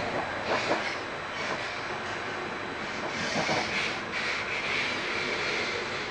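Vivalto double-deck passenger coach running at speed, heard from inside: a steady rush and rumble of wheels on rail, swelling louder about half a second in and again around three to four seconds.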